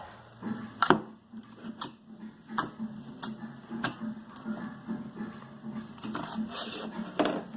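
Glossy slime being squeezed and poked by hand, giving irregular sharp clicks and small pops several times a second.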